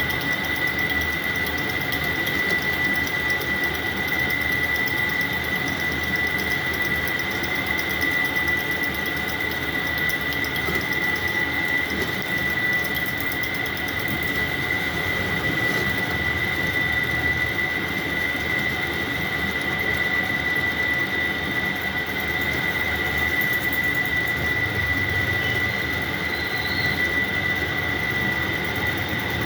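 Metal lathe running while turning a motor shaft: steady machine noise with a constant high-pitched squeal from the cut.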